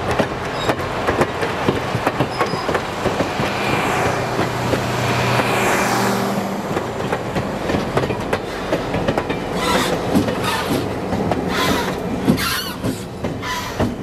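Train hauled by the anthracite-burning CNJ 0-6-0 steam locomotive No. 113 rolling by, its wheels clicking and knocking over the rail joints. A falling whoosh comes about five seconds in as it passes.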